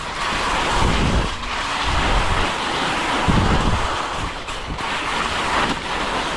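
Wind blowing across the microphone: a steady rushing hiss with uneven low rumbling gusts.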